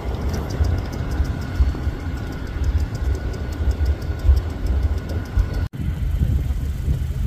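Diesel locomotives rumbling as they move off through the yard, with a faint steady whine and light regular clicking. The sound breaks off abruptly about three quarters through and the low rumble carries on.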